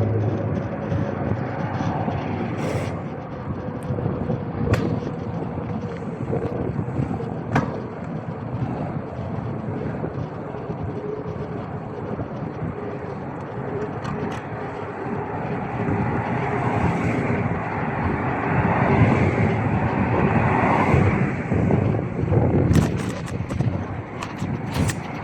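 Road traffic noise: a steady rush of passing vehicles with wind on the microphone and a few sharp clicks.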